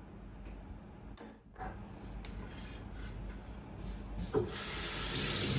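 Wooden cutting board rubbing and scraping against a stainless steel counter as it is moved, with a sharp knock about four seconds in, followed by a steady rushing hiss near the end.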